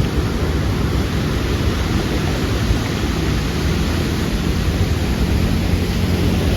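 Ocean surf at the shore mixed with wind buffeting the microphone: a loud, steady rush, heaviest in the low end.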